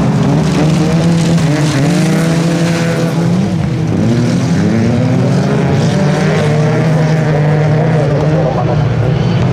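A pack of race cars on a gravel track, several engines revving at once, their pitches rising and falling over one another.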